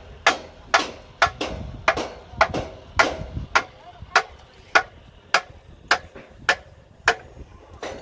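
Hand hammer striking in a steady rhythm at about two blows a second, each blow a sharp crack with a brief metallic ring, as work is done on column formwork.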